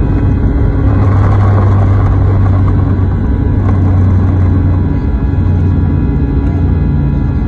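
CFM56-5B turbofan engines of an Airbus A320 at takeoff thrust, heard from inside the cabin behind the wing: a loud, steady roar over the low rumble of the takeoff roll on a wet runway. About five seconds in, the low rumble eases as the aircraft rotates.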